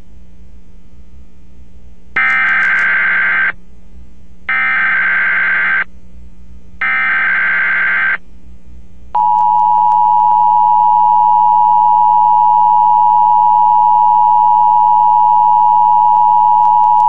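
Emergency Alert System header as broadcast on radio: three short bursts of SAME digital data tones, each about a second and a half long, then about nine seconds in the EAS attention signal, a steady two-tone beep of 853 and 960 Hz that holds to the end. It signals the activation of the Emergency Alert System, here for a National Weather Service tornado warning.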